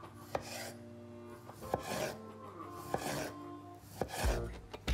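Chef's knife slicing through a cooked beetroot and knocking on a wooden cutting board: about five cuts, roughly one a second, each a short soft slice ending in a sharp tap.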